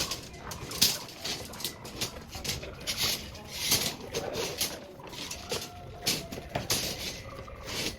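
Irregular scraping and crunching of hand tools working the gravel and soil base of a concrete form, a quick string of short, sharp strokes.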